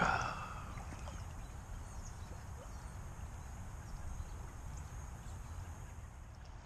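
Steady low rumble of wind buffeting the microphone, with one short sharp noise at the very start from casting a jig on a light spinning rod, and a few faint ticks after it.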